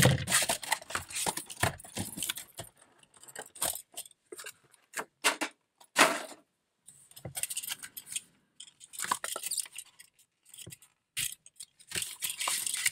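A 1:64 diecast toy car being unpacked from its cut-open packaging: plastic and cardboard rustling, scraping and clicking in irregular bursts.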